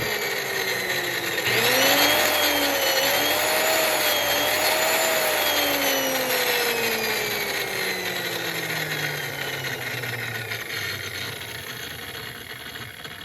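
Rockwell model 790 electric disc sander running loud with a whine on its test run after rewiring. From about five seconds in it coasts down, its pitch falling steadily.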